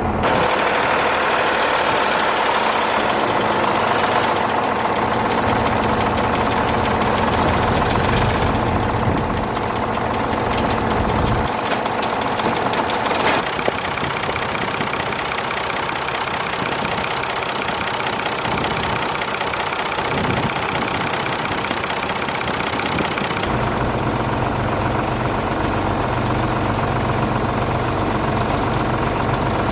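Farm tractor's diesel engine running steadily. Its low rumble drops away and returns abruptly a couple of times.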